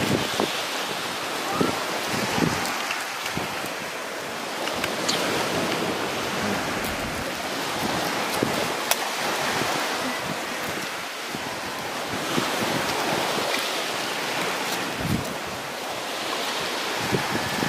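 Sea waves washing onto the shore, swelling and easing every few seconds, with wind buffeting the microphone. A few faint clicks are heard over it.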